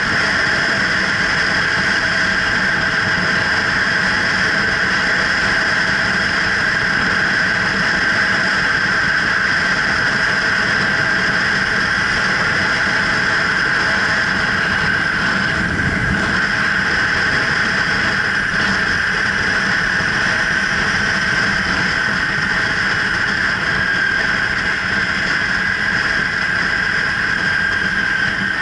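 Kawasaki Ninja 300's parallel-twin engine running steadily as the motorcycle cruises, with a steady high whine above the engine note.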